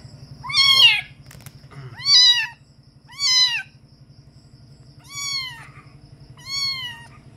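A young kitten meowing five times, short high calls about a second or so apart, each falling in pitch at the end. It is a kitten just brought from a neighbour's house, which the owner says is calling because it does not yet know the place.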